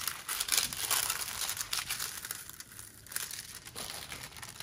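Clear plastic cover sheet on a diamond-painting canvas crinkling as hands smooth and straighten the canvas flat, busiest in the first second or so, then softer, scattered rustles.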